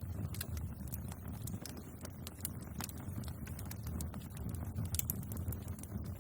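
Wood bonfire crackling, with irregular sharp pops and snaps several times a second over a steady low rumble.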